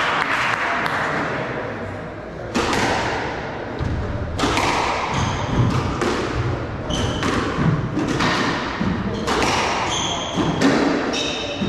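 Squash rally: the ball smacks off rackets and the court walls about every second or two, each hit echoing in the hard-walled court, with short high squeaks of court shoes on the wooden floor between hits.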